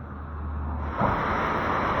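A low steady hum under faint hiss, then about a second in an abrupt change to a loud, even rush of sea waves washing in.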